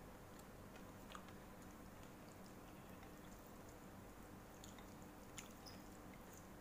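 Faint chewing of noodles, with a few soft clicks, over a low steady hum.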